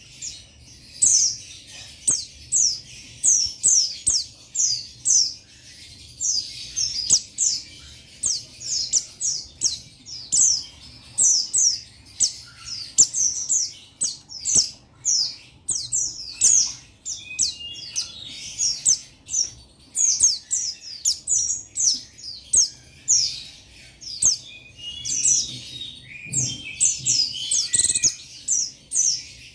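Male buxtoni white-eye (pleci) singing a rival-calling song: rapid runs of high, thin, falling notes, several a second, broken by a few harsher, lower chattering calls.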